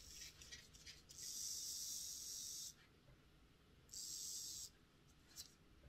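Freshly serviced Hornby ringfield model-locomotive motor test-run twice, briefly, with a quiet high-pitched whir: first for about a second and a half, then again for under a second.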